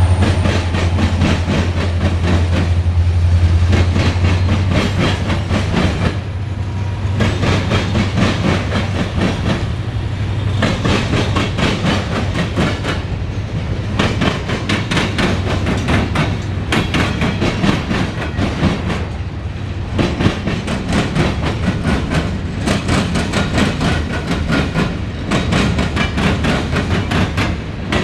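Freight train rolling past while backing up, its car wheels clicking steadily over rail joints above a continuous rumble. A low drone is strong in the first ten seconds or so, then fades.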